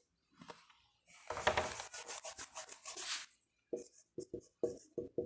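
Rubbing and scratching strokes on a writing surface: a dense run of quick rubbing for about two seconds starting a second in, then a string of short separate strokes near the end.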